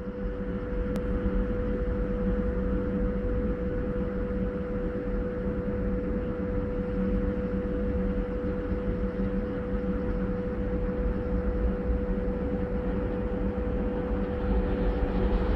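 Steady hum with one constant tone over a low rumble from an ET42 electric locomotive standing with its freight train, its auxiliary machinery running. A TEM2 diesel shunter running light grows a little louder near the end as it approaches.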